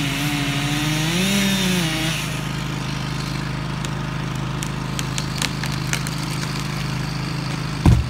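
Chainsaw revving up and down through the felling cut on a hollow ash trunk, then a steady engine hum with a few sharp cracks of wood. Near the end a heavy thud as the trunk hits the ground.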